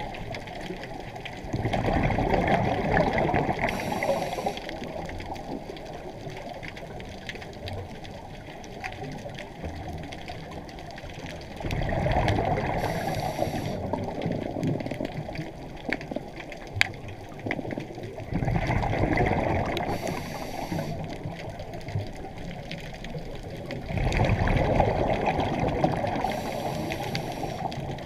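Scuba diver's exhaled bubbles rushing out of the regulator, heard underwater. Four bursts of a few seconds each, several seconds apart, over a steady watery hiss.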